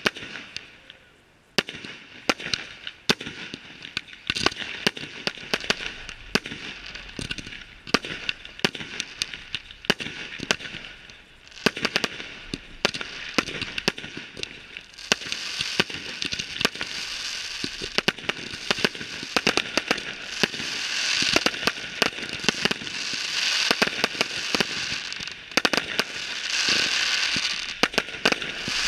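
Aerial fireworks display: a steady run of sharp bangs from bursting shells. About halfway through, dense crackling and hissing effects join in and swell in waves toward the end.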